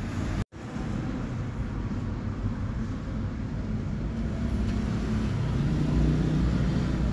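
Steady low rumble and hiss of background noise picked up by a phone's microphone, broken by a brief complete dropout about half a second in where the recording is cut.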